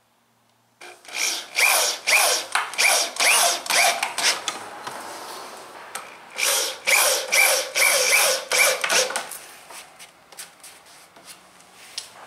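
Corded power drill driving a long wood screw into a pressure-treated 2x4, the trigger pulsed in quick short bursts with the motor whirring up each time, in two runs of a few seconds. A few light clicks follow near the end.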